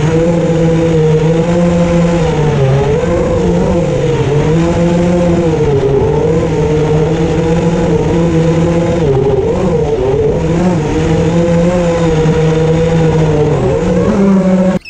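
A motor's steady pitched hum with a whiny overtone, from the vehicle carrying the camera while it follows the board. Its pitch dips and rises gently several times as the speed changes.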